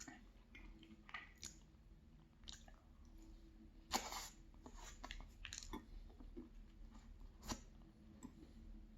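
Faint close-up chewing and mouth sounds of someone eating, with scattered small clicks and a louder smack about four seconds in.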